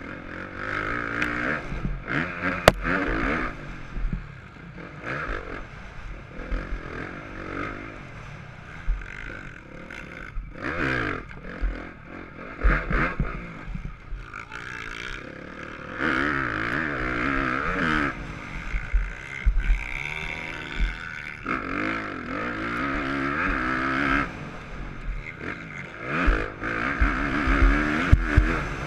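Motocross bike engine heard from a camera mounted on the bike, revving hard and backing off again and again as the rider opens the throttle out of the turns and shuts off into them. Sharp knocks come now and then from the bike over the rough dirt, the loudest about three seconds in.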